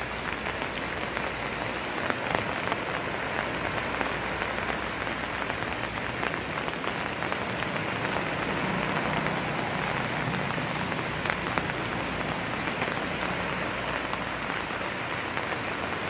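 Steady rain falling, an even patter with a few sharper drops now and then.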